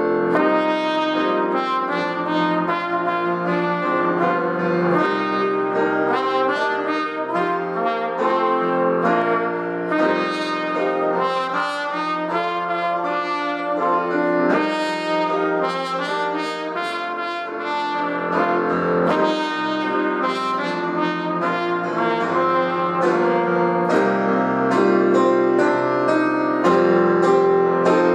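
Trumpet playing a slow melody over electric keyboard accompaniment.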